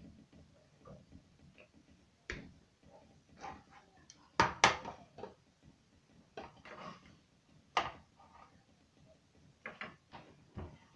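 Scattered knocks and clatters of small objects being picked up and set down, the loudest a quick pair of knocks about four and a half seconds in.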